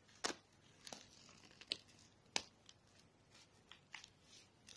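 Paper and clear plastic pockets of a handmade paper explosion box crinkling and clicking as fingers handle them: a scattering of short, sharp crinkles and taps, the loudest three about a third of a second in, near the middle and just after it.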